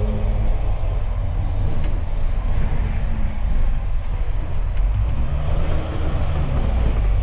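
Interior noise of a moving double-decker bus: a steady low engine drone with road rumble. The engine note shifts slightly about five seconds in.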